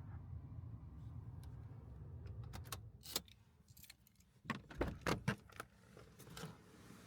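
A low steady hum stops about three seconds in. It is followed by a series of light clinks and knocks, several close together near the middle, like small metal objects or keys being handled.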